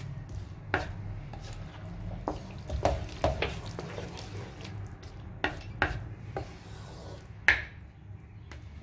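Wooden spatula stirring and scraping a thick tauchu and bell-pepper sauce around a wok: irregular scrapes and light taps, a sharper one about seven and a half seconds in, over a low steady hum.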